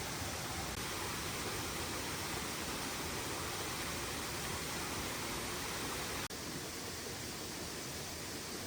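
Steady rushing noise of water, even and unbroken. It drops out for an instant about six seconds in, then carries on slightly quieter.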